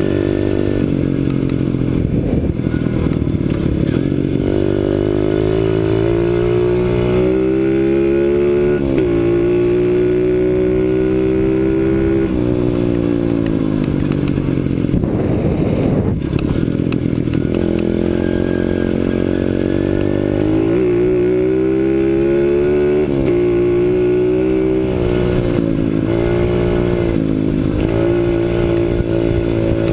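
CRZ 125 Pro pit bike's 125cc four-stroke single engine under way, its pitch rising as the throttle opens and dropping sharply every few seconds before climbing again.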